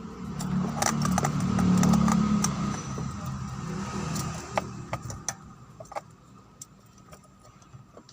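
Daihatsu Luxio engine running with a low rumble that fades away about five seconds in, with metallic clinks and clicks like keys or tools over it.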